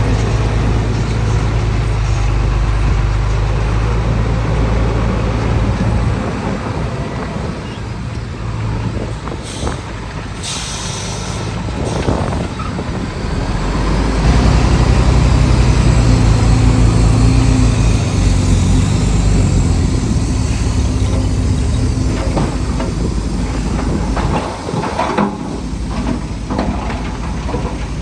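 Heavy diesel earthmoving machinery running: a deep engine rumble that eases off for a few seconds and then builds up louder again about halfway through, with a brief hiss of air about ten seconds in.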